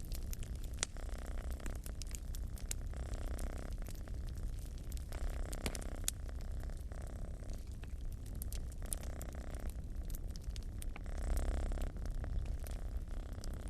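Domestic cat purring in a low, pulsing rumble that swells and eases with its breaths, while a wood fire crackles with irregular sharp pops.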